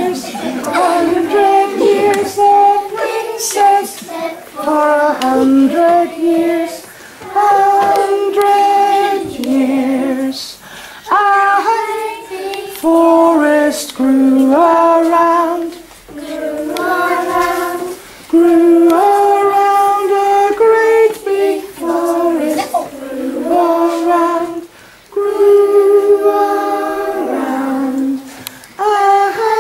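Young children singing a song together, in phrases of held notes with short pauses between.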